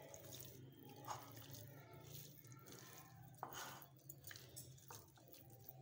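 Faint wet squishing of a hand mixing raw fish pieces with ginger-garlic paste and spices in a glass bowl, with a couple of light knocks, about a second and three and a half seconds in, over a low steady hum.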